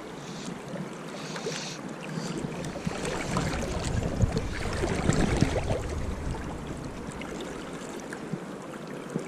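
Fast-flowing river water rushing steadily, with wind buffeting the microphone and gusting louder for a few seconds in the middle.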